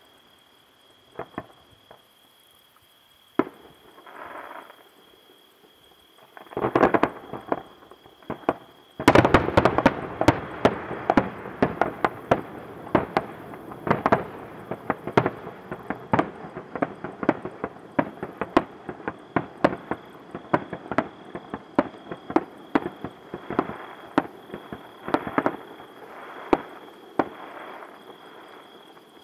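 Aerial fireworks: a few separate shell bursts, then about nine seconds in a dense barrage of rapid bangs and crackling that thins out toward the end.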